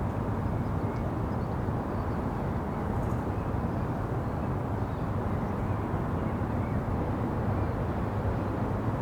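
City ambience heard from a rooftop: a steady, even rumble of distant traffic.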